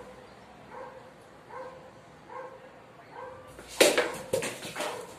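A dog barks repeatedly in the background, a bark a little under once a second. About four seconds in, a katana blade strikes a green coconut with a loud sharp crack, followed by a second sharp knock half a second later.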